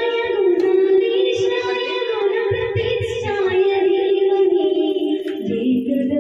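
Devotional song in a high voice with long, slowly bending held notes.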